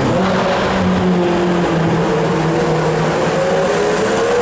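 Pagani Zonda's V12 engine running in a road tunnel. There is a gear change right at the start, then the revs ease down over the next few seconds and climb again near the end as it accelerates.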